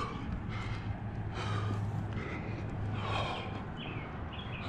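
A climber's heavy breathing while pulling through a hard move, one loud breath about every second and a half over a low steady hum.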